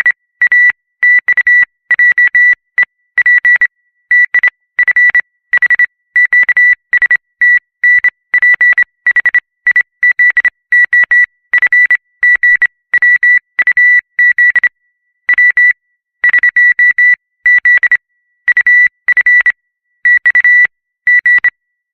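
High-pitched oscillator tone keyed as Morse code: one steady beep switching on and off in a fast run of short and long pulses, stopping shortly before the end.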